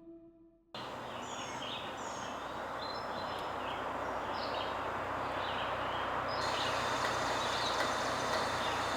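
A fading tail of music cuts off less than a second in, giving way to a steady hiss of noise with birds chirping over it.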